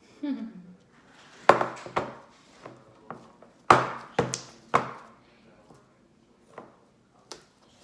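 Homemade slime being kneaded and pressed by hand against a table: an irregular series of sharp smacks and pops, loudest about a second and a half in and again near the middle.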